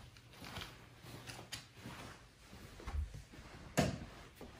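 Soft knocks and handling noises as a person moves through a small room, over a faint low hum, then a sharp click about four seconds in as a closet door is opened.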